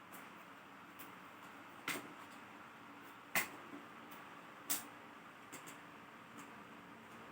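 Scattered sharp clicks and taps from tools and small laptop parts being handled during disassembly, with three louder clicks spaced about a second and a half apart, over a steady faint hiss.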